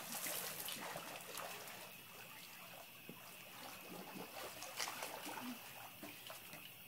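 Faint water trickling and lapping in a swimming pool, with scattered small splashes.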